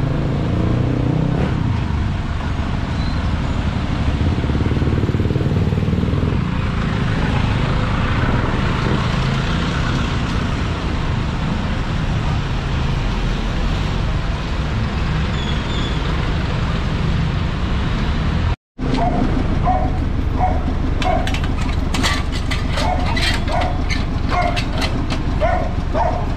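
Street traffic noise: vehicles running and passing on a busy city street, a steady rumble broken by a split-second gap of silence about two-thirds of the way through.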